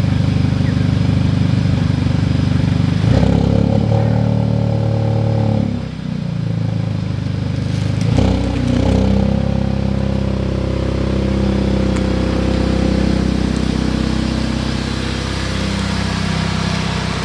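Car engine running and being revved, its pitch shifting up and down several times, with a brief drop about six seconds in.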